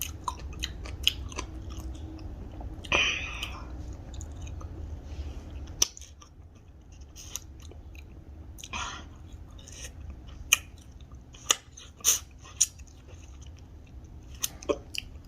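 A person chewing and biting food close to the microphone, with wet mouth sounds and sharp crunches scattered irregularly throughout.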